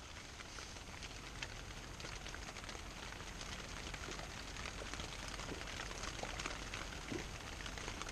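Light rain pattering: a soft, steady hiss dotted with many small, scattered drop ticks.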